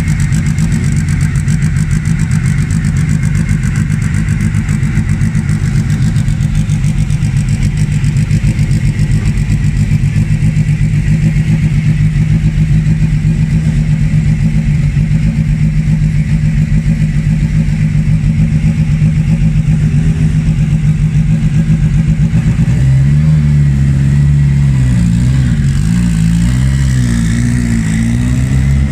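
Lancia Delta S4 race car's engine idling steadily. About 23 seconds in, the revs start to rise and fall unevenly as the car pulls away.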